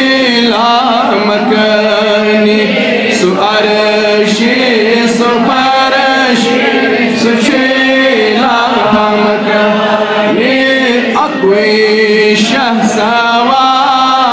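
A man singing a Kashmiri naat (devotional song in praise of the Prophet) solo, chant-like, with long held notes that bend and waver, over a steady low drone.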